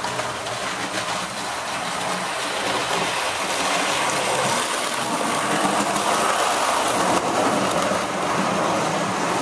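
Model railway tank locomotive pulling a coach along the track, its small electric motor and wheels giving a steady whirring run that grows a little louder as it passes.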